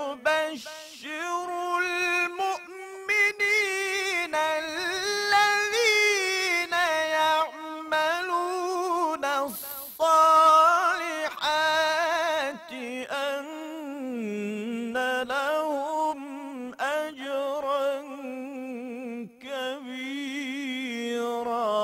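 Unaccompanied solo voice chanting in long, ornamented melismatic phrases, in the style of Quranic recitation (tilawa). The phrases are broken by brief pauses for breath.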